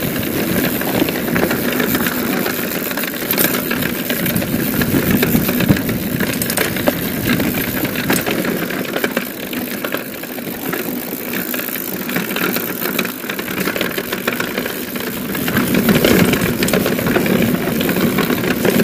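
Mountain bike descending fast on a dirt singletrack: wind rushing over the camera's microphone, tyre noise on the dirt and frequent clicks and rattles from the bike.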